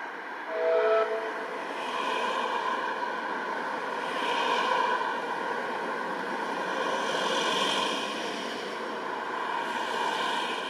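Narrow-gauge steam train pulling away: a short whistle blast about half a second in, then the coaches rolling and clattering past, the sound swelling and fading every few seconds.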